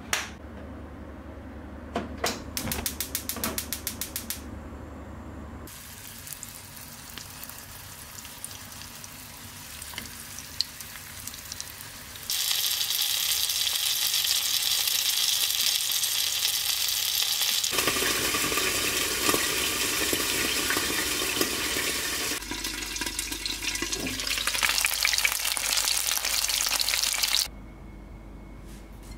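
Gyoza sizzling as they fry in hot oil in a Tefal non-stick frying pan. The sizzle starts suddenly about halfway through and stops abruptly near the end. Before it come a few clicks and a quick even run of ticking.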